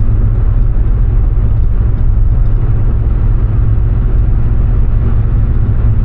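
Steady low rumble of road and engine noise inside a VW Jetta's cabin while cruising at around 60 mph.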